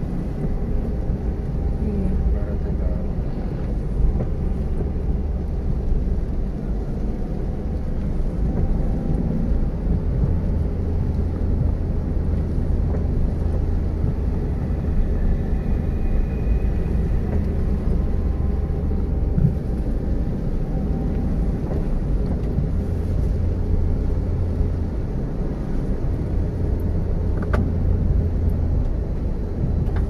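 A car driving, heard from inside the cabin: a steady low rumble of engine and tyre noise.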